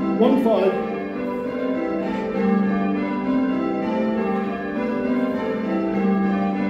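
A ring of six church bells, a modern Whitechapel six cast in 1978 with the tenor in G, rung in call changes: the bells strike one after another in a steady rhythm, their tones overlapping. Heard from inside the ringing chamber below the bells.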